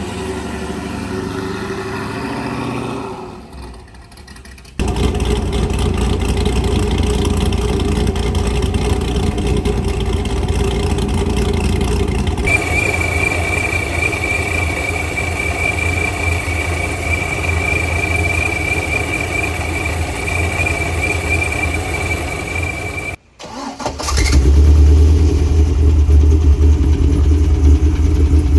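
Corvette V8 engines idling and running in a series of short clips, cut abruptly from one car to the next. A steady high whine sounds over the engine through the middle stretch, and the last clip is a deeper, louder idle.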